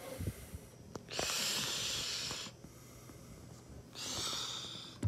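A person breathing noisily, two long breaths: one about a second in and one near the end, with a few faint knocks between them.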